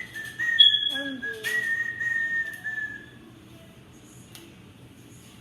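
A person whistling one held note, steady with slight wavers in pitch, for about three seconds. A higher note joins it briefly about a second in.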